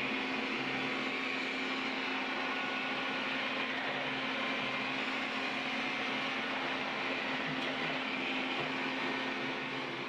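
Xiaomi Mi Robot Vacuum running as it drives across the floor: a steady whirr with one constant hum underneath.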